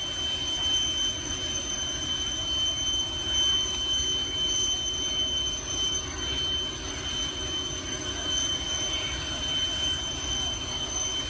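Boeing 747 jet engines running, a steady rumble with a constant high-pitched turbine whine over it.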